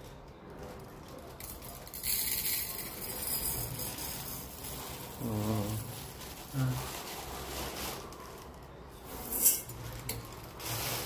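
Raw rice scooped and poured with a steel tumbler in an aluminium pot. The grains rustle and hiss in long pours, and there is a sharp metal clink about nine seconds in.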